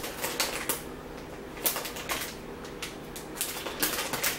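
Irregular crisp crackles and clicks from a crunchy snack being eaten, several close together near the end.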